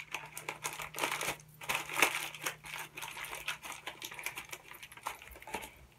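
A disposable glove holding leftover epoxy resin and wooden mixing sticks being balled up by hand: a run of irregular crinkling and small crackles.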